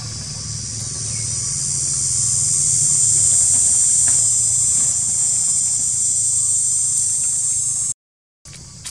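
Loud, high-pitched insect chorus droning, swelling over the first few seconds and then holding steady, with a low hum beneath; it cuts off suddenly near the end.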